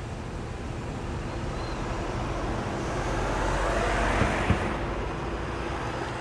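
A car driving past on the street, its tyre and road noise swelling to a peak about four seconds in and then fading away. Two short knocks sound at the peak.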